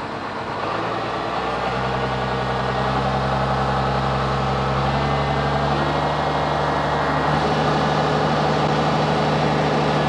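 Tractor engine idling steadily, getting a little louder over the first couple of seconds.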